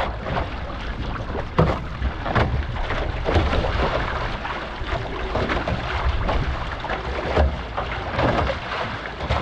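Water rushing and splashing around a one-person outrigger canoe being paddled, with wind rumbling on the microphone. Sharper splashes stand out about once a second.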